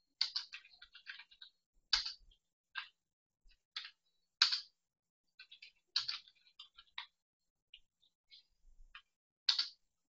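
Computer keyboard typing: keys pressed in uneven runs and single strokes, entering text.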